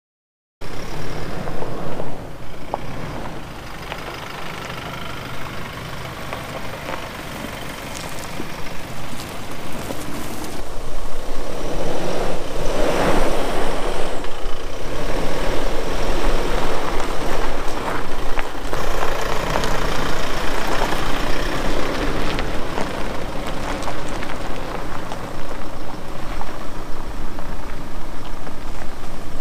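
Toyota Fortuner's 2.8-litre turbo-diesel engine running as the SUV drives a rough dirt track in four-wheel-drive high range, heard from outside the vehicle. The sound grows louder from about ten seconds in.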